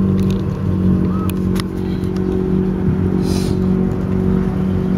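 A steady low engine hum, holding one even pitch, with a few faint clicks in the first two seconds and a short hiss a little past the middle.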